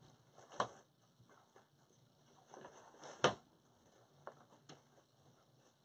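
Faint handling sounds from working wreath materials by hand: a few light clicks and a short rustle, with the sharpest click a little past the midpoint.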